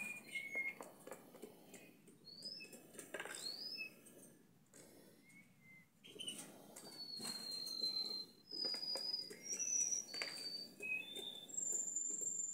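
A canary bathing in a clip-on plastic bird bath: water splashing and wings fluttering in bouts, with short high chirps and whistled notes scattered throughout. The splashing eases off around the middle, then picks up again.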